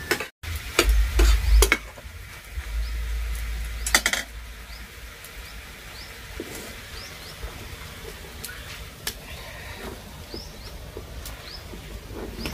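A metal spatula knocking and scraping in an iron kadhai of frying cabbage and brinjal, with muffled low thumps and a sharp clink about four seconds in. After that a faint sizzle goes on under short chirps of small birds.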